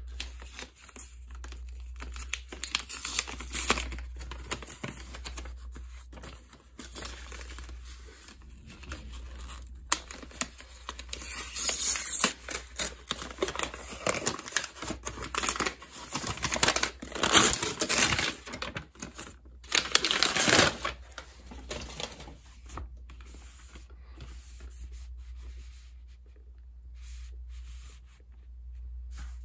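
Packaging of a GoPro Hero 11 being handled and opened by hand: irregular rustling and tearing with small clicks and knocks, loudest in the middle of the stretch, over a steady low hum.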